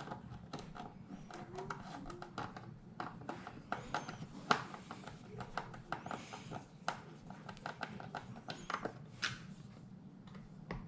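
Irregular small clicks and taps of screws being driven with a Phillips screwdriver and of plastic and metal parts being handled, fastening a computer's stand mount, over a steady low hum.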